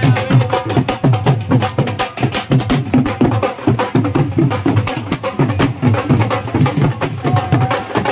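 Several dhol drums beaten together in a fast, driving rhythm, a dense stream of strokes with deep booming hits.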